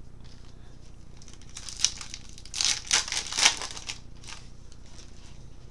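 Foil wrapper of a baseball card pack crinkling and tearing as the pack is ripped open by hand, in a run of rustles lasting a couple of seconds with a sharp snap near the start.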